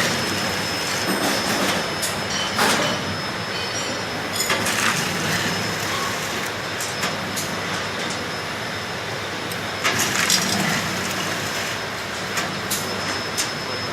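Automatic linear tunnel-type vial washing machine running: a steady mechanical noise with irregular sharp clicks and knocks.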